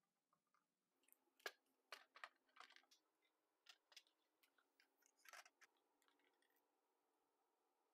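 Near silence, with a few faint clicks and taps from the plastic dishwasher faceplate and its clips being handled and fitted.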